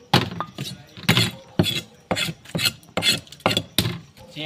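Knife scraping the scales off a whole rohu fish on a wooden chopping block, in quick repeated strokes about two a second.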